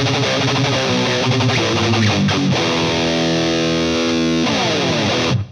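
Distorted electric guitar played through a HeadRush pedalboard's two modelled amp heads, with Tube Screamer overdrive and arena reverb. Fast picked riffing gives way to a held, ringing chord about three seconds in, then a short pitch slide, and the sound cuts off abruptly near the end.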